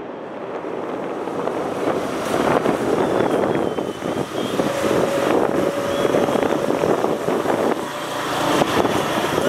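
Road traffic and wind on the microphone, fading up from silence into a steady, dense outdoor noise. A steady hum is held for about three seconds in the middle.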